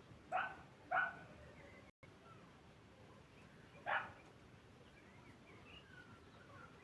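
A dog barking: two barks about half a second apart near the start, then a single bark about four seconds in.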